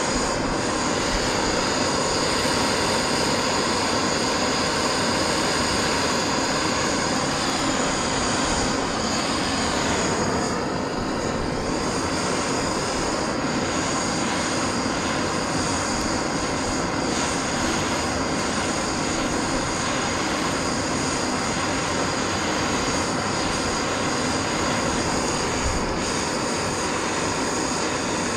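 Steady mechanical drone with a continuous hiss, even in level, dipping slightly about ten seconds in.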